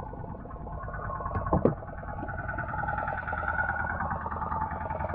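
Small fishing boat's inboard engine running with an even, rapid chugging and a low hum, with one sharp knock about a second and a half in.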